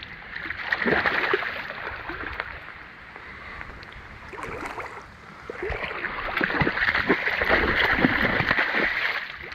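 Water splashing and churning as a hooked coho salmon thrashes in the shallows while being landed, over running water. The splashing is loudest about a second in and again from about six seconds on.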